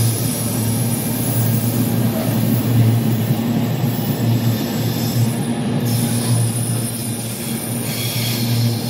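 Empty intermodal container flat wagons of a freight train rolling past, with a steady noise of wheels running on the rails.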